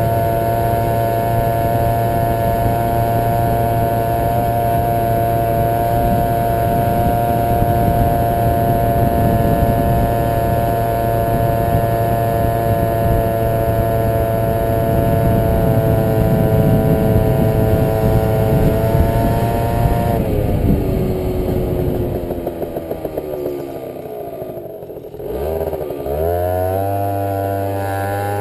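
Yamaha Aerox 50 cc two-stroke scooter engine under way at steady high revs. About twenty seconds in the revs fall as the throttle is eased off, bottoming out a few seconds later, then rise again as it accelerates near the end.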